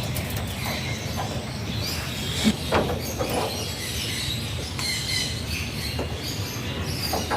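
Alexandrine parakeet making short squeaky chirps and calls, with a louder call about two and a half seconds in, over a steady low background rumble.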